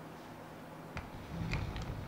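Handling noise: a sharp click about halfway through, then a low rumbling bump with two light clicks, as of a camera being moved or adjusted.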